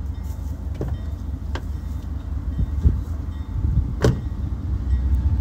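Diesel freight train rumbling low and steady, with a couple of sharp metallic clanks, the loudest about four seconds in.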